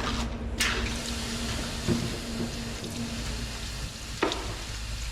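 Water hissing and sizzling as it is put on the hot, freshly welded steel pin to cool it, over a faint steady hum, with a couple of short ticks.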